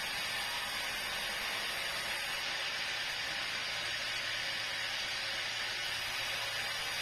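Sawmill saw running steadily, a constant hissing noise over a faint low hum.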